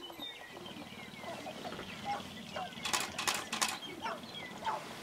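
Sharp-tailed grouse on a lek: a scatter of short clucking calls that fall in pitch, and about three seconds in a loud rattling run of rapid clicks, three quick bursts, from a dancing male's stamping feet and rattling tail feathers.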